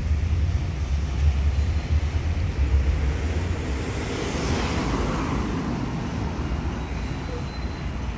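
Street traffic: a car passing, swelling and fading about four to five seconds in, over a steady low rumble.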